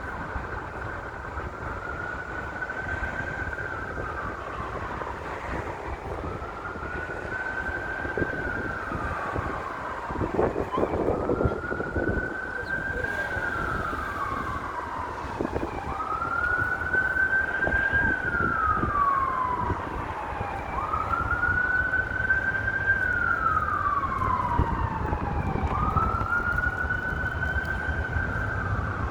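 Emergency vehicle siren sounding a slow wail: six cycles about five seconds apart, each rising, holding high, then falling. A steady rumble of city traffic and wind lies under it.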